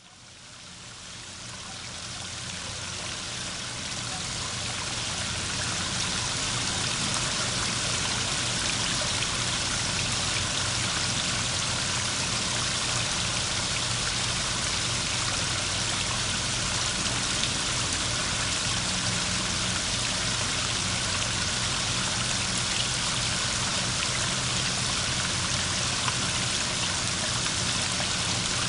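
Running water of a stream or river, fading in over the first several seconds and then flowing steadily.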